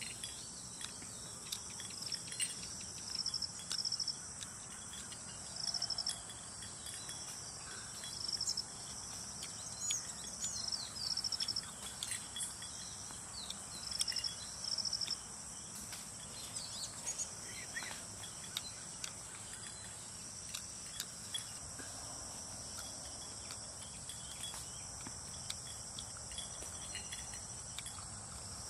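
Insects chirping: short, high-pitched pulsed trills repeating every second or two over a steady high insect drone, with scattered faint clicks.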